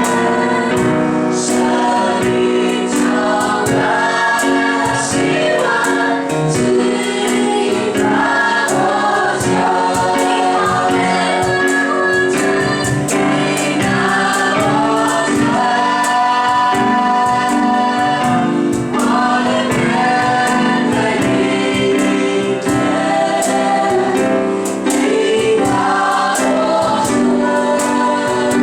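Group of voices singing a Christian worship song with instrumental accompaniment and a steady beat.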